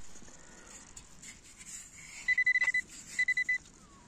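Metal detector beeping over a buried metal target in the sand: two bursts of rapid high beeps at one pitch, the first about halfway through and the second about a second later.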